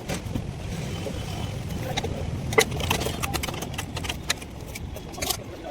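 Scattered sharp clicks and knocks, typical of tools and metal parts being handled during backhoe repair work. The loudest comes about two and a half seconds in. Underneath them is a steady low rumble.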